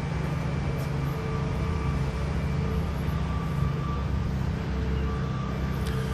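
A steady low mechanical hum from a running engine or motor, holding an even pitch throughout.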